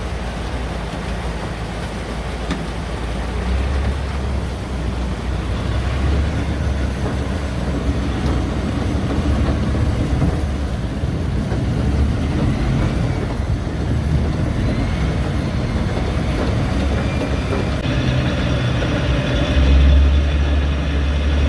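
Engine of a Sherp 10x10 amphibious all-terrain vehicle running under way, a steady low drone with rumble and rattle that grows somewhat louder through the ride, loudest near the end.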